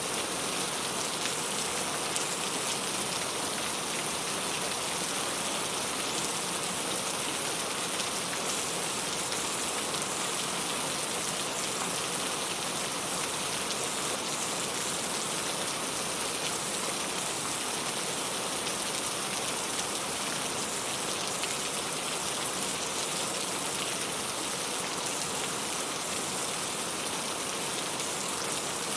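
Steady rain falling, a constant even hiss of drops on surfaces with no let-up or change.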